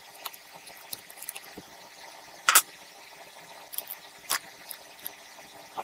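Sparse light clicks and clinks of small steel parts being handled as the connecting-rod cap and its bolts come off a disassembled L-head mower engine, with one louder clink about two and a half seconds in and another a couple of seconds later.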